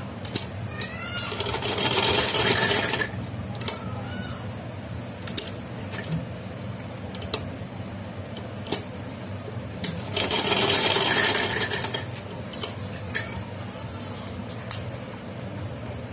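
Sewing machine stitching in two runs of about two seconds each, a dense rapid clatter, with scattered sharp clicks and knocks from handling the machine and fabric in between.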